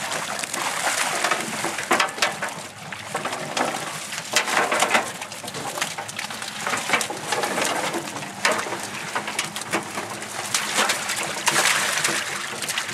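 Water splashing and pouring as a hoop trap net holding thrashing fish is hauled up out of the lake and into a boat, with irregular knocks and rattles of the net's hoops and mesh against the hull.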